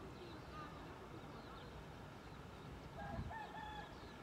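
A rooster crowing faintly once, about three seconds in, with a low thump at the same moment. Faint small bird chirps sound over a quiet background.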